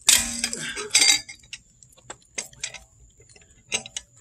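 Metal clanks and clinks from a steel cross lug wrench with a car-jack handle slipped over one arm as a cheater bar, being worked on a car's lug nuts to break them loose: two loud clanks about a second apart near the start, then lighter scattered clicks.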